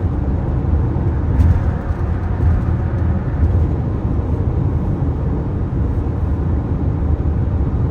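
Steady road and engine rumble of a car cruising on a highway, heard from inside the cabin.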